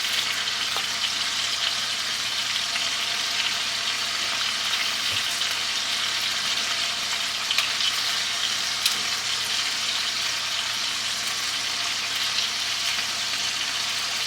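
Chicken breasts browning in a hot skillet: a steady sizzle with a few sharper pops of spattering fat.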